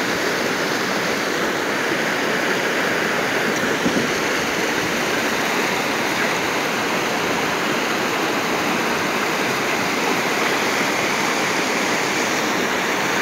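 Shallow river water rushing steadily over and between the stones of a low hand-built rock wall.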